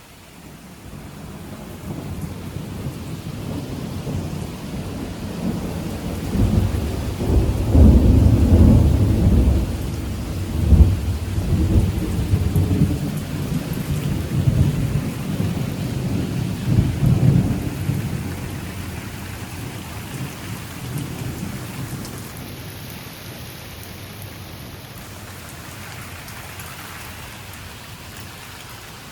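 Rolling thunder over heavy rain: a deep rumble builds over the first few seconds, is loudest in the middle with a sharp crack about a third of the way through, then dies away, leaving the steady hiss of the downpour.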